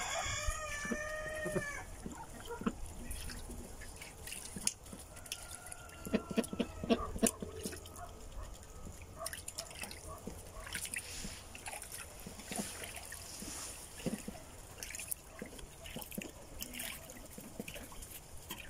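A rooster crows once at the start, one long call that rises and falls in pitch. After it come soft wet clicks and dabbling as ducks preen and peck at the muddy ground.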